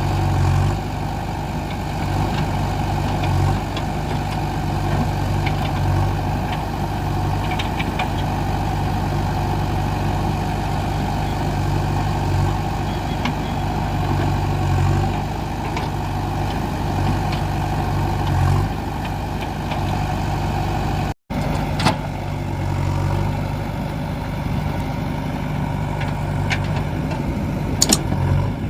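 JCB 3DX backhoe loader's diesel engine running steadily, briefly swelling every couple of seconds while the machine works. A few sharp knocks come near the end.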